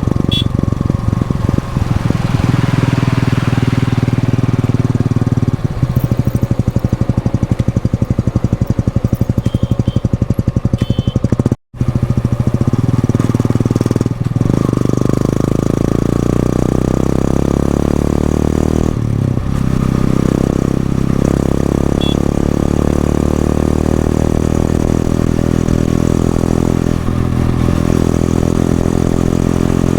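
Stock Yamaha FZS-V3 motorcycle's single-cylinder engine and exhaust running under way, steady at first. After a brief cut about twelve seconds in, it rises in pitch again and again as it accelerates, each rise broken by a short dip.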